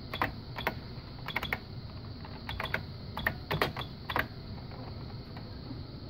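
Keys typed on an IBM mechanical terminal keyboard (the beige kind with a Field Exit key): about a dozen sharp clacks, alone or in quick little clusters, stopping a little after four seconds in.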